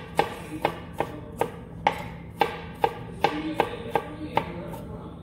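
Kitchen knife chopping garlic on a cutting board in steady strokes, about two a second, stopping briefly near the end.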